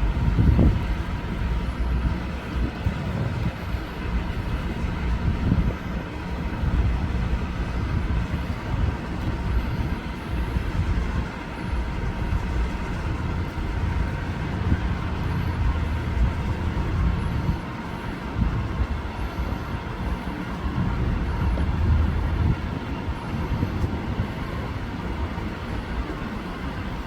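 Steady low rumble of road traffic around a parking lot, with no single event standing out.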